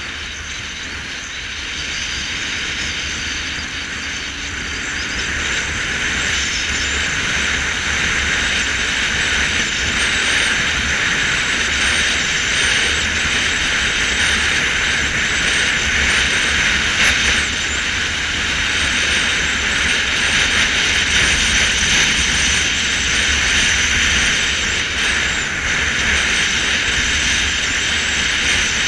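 Motorcycle riding at steady speed: a continuous hissing rush of wind and road noise over a low engine rumble, growing louder about five seconds in.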